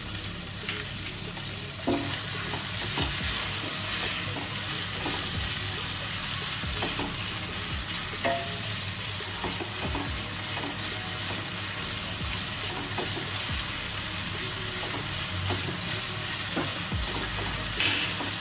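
Chopped onions, garlic and ginger sizzling in hot oil in a nonstick wok, stirred with a spatula that scrapes and taps against the pan now and then.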